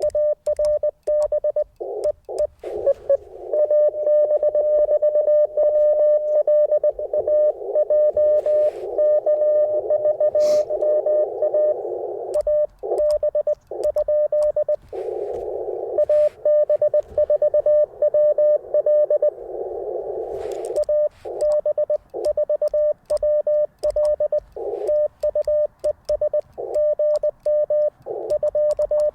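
Morse code from an Icom IC-705 transceiver: a single steady tone keyed on and off in dits and dahs. Near the start and end the keying is clean, like the radio's sending sidetone. Through the middle, received CW sits in a narrow band of receiver hiss.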